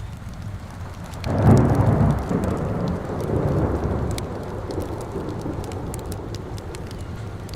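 A roll of thunder rumbles in suddenly about a second in and fades out slowly over the next few seconds, over steady rain and the scattered crackle of a wood fire.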